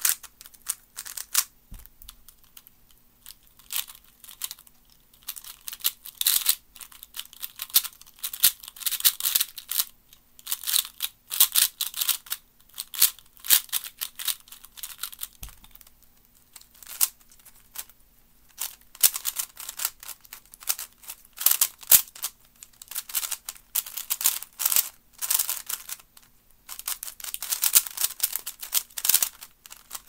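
Plastic speed cubes being turned rapidly by hand: fast clicking and clattering of the layers as they snap round, in bursts with brief pauses between them.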